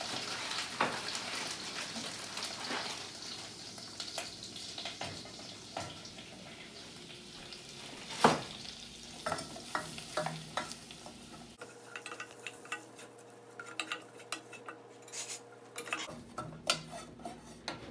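Butter and flour sizzling in a saucepan as a roux while a wooden spoon stirs and scrapes the pan, with a sharp knock about eight seconds in. In the last few seconds the sizzle thins out, leaving a run of light clicks of the spoon against the pan.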